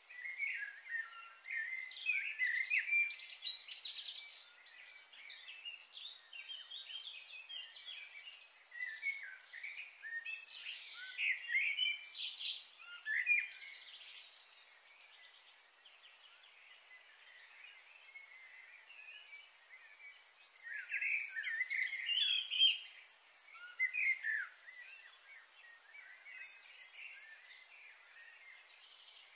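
Wild birds chirping and calling in many short, quick notes, busy at first, thinning out for a few seconds past the middle, then busy again. A steady, very high hiss joins about two-thirds of the way in.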